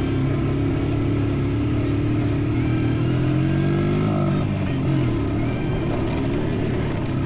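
Honda TRX90 mini quad's small single-cylinder four-stroke engine running under load as the underpowered quad struggles up a dirt-trail hill; its pitch dips and comes back up about halfway through.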